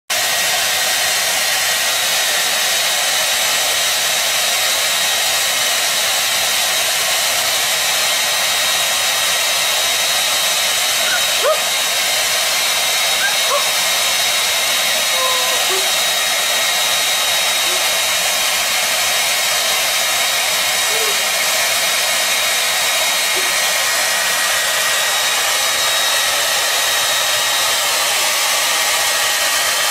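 Handheld hair dryer running steadily: a constant rush of blown air with a high, even motor whine.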